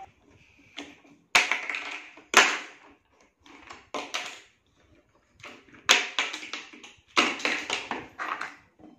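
Large plastic toy building blocks clacking and rattling as a small child handles them on a table: a series of sudden knocks and clatters, several of them loud, spaced about a second apart.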